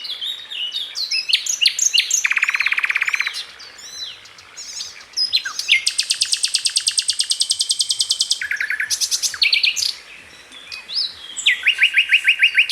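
A small songbird singing a long, varied song: quick chirps and sweeping whistled notes broken by several rapid trills, one lower trill a couple of seconds in, a long high trill lasting over two seconds in the middle, and another trill near the end.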